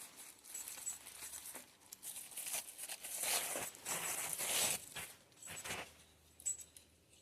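Packing material being crumpled and torn open by hand, an irregular crinkling rustle that is loudest a few seconds in and dies away near the end: the small ornaments are being unwrapped.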